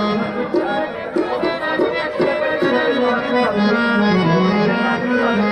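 Live qawwali music: a harmonium playing a melodic passage over tabla, with no singing.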